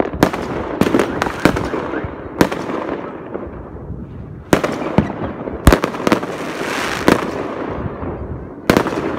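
Fireworks going off: a dozen or so sharp bangs at uneven intervals, with crackling hiss between them.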